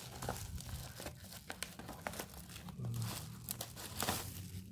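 Parcel packaging being unwrapped by hand, with irregular crinkling and tearing.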